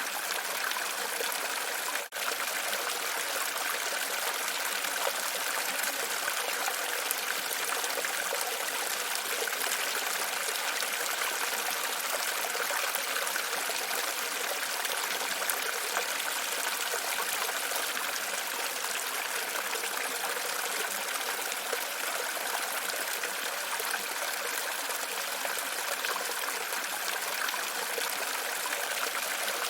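Running water trickling and splashing steadily, with a momentary dropout about two seconds in.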